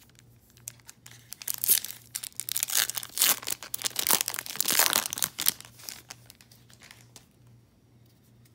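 Foil wrapper of a baseball card pack crinkling and being torn open, the crackling loudest from about two to five and a half seconds in, then dying away.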